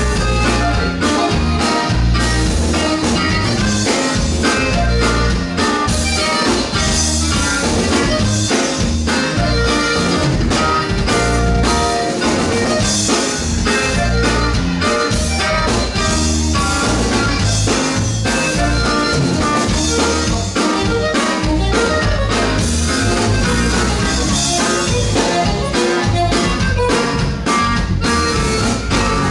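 Live band playing amplified music, with electric and acoustic guitars over a drum kit keeping a steady beat.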